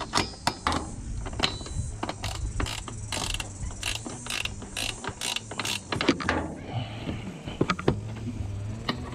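Ratcheting wrench clicking in quick back-and-forth strokes, about three clicks a second, as the nut holding a windscreen wiper arm onto its pivot is tightened; the clicks thin out over the last few seconds.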